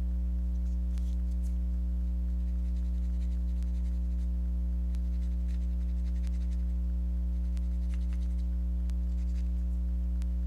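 Faint, irregular scratching strokes of a small hand tool scraping and sanding the broken plastic recliner handle, over a loud steady electrical hum.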